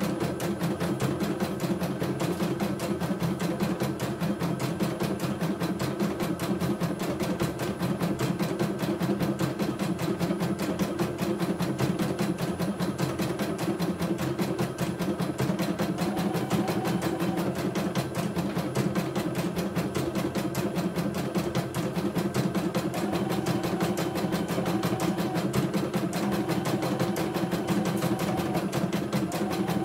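CNY E900 computerized embroidery machine stitching a test design at about 650 stitches a minute on a test run after a full strip-down service: a fast, steady needle rhythm. A faint high whine comes and goes in the second half.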